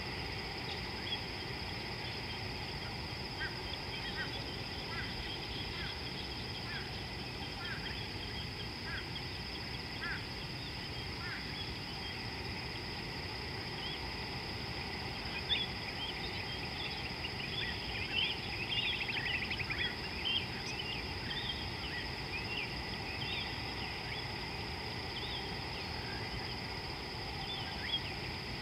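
Outdoor ambience of birds over a steady high insect drone. One bird gives short chirps about once a second, then in the middle stretch several birds twitter more busily, all over a constant low background noise.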